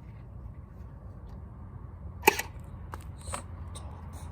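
A sharp plastic click a little over two seconds in, followed by a few lighter clicks and taps, from handling a toy gel blaster while checking its battery.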